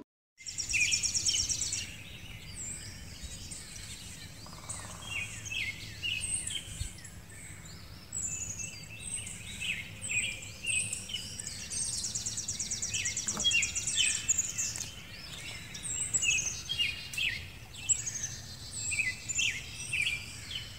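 Several songbirds singing together, a dense run of overlapping chirps, whistles and fast trills.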